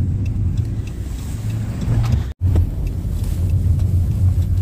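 Car interior noise while driving: a steady low engine and road rumble. It cuts out for an instant a little over two seconds in.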